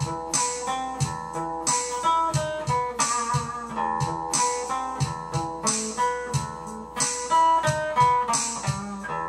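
Guitar music: plucked notes and chords in a steady rhythm.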